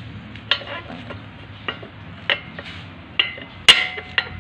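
Metal clinks and taps from a drive-shaft universal joint (cross joint) being handled, its steel yoke and bearing caps knocking together, about seven times. The loudest clink, about three-quarters through, rings briefly.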